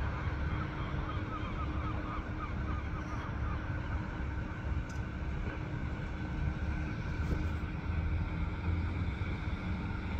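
Steady low rumble of a PolRegio SA137 diesel railcar set pulling out and approaching, with a steady hum and wind on the microphone. Faint high chirps are heard during the first couple of seconds.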